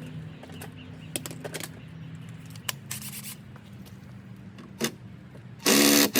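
Light clicks and scraping of wood and screws being handled over a low steady hum, then near the end a loud half-second burst of a Makita cordless impact driver hammering a wood screw in.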